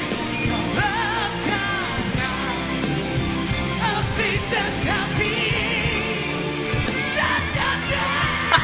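Live rock band performance: a singer holds and bends a melodic vocal line over a full band with drums.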